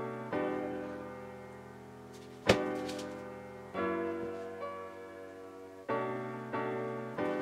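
Background music: mellow piano chords struck every second or two, each ringing and fading away. A single sharp hit comes about two and a half seconds in.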